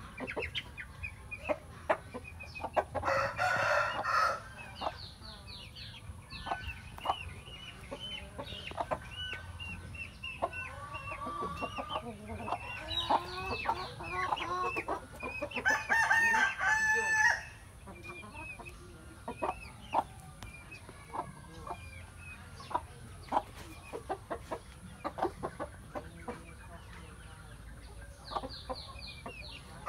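Cuban-breed roosters crowing: one crow about three seconds in and a longer one around sixteen seconds, with chickens clucking and giving short chirping calls in between.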